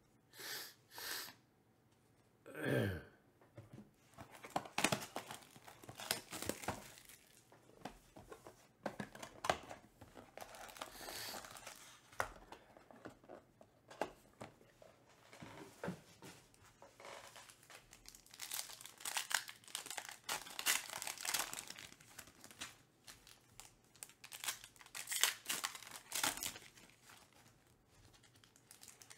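Hands tearing open foil trading-card pack wrappers and handling a cardboard card box, with irregular crinkling and rustling throughout. A brief sound falling in pitch comes about three seconds in.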